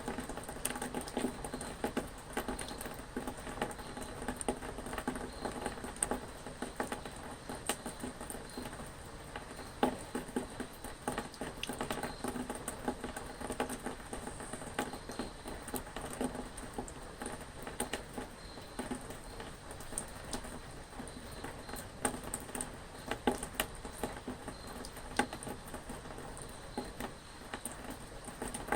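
Rain pattering: a steady hiss of rainfall with many separate drops ticking irregularly.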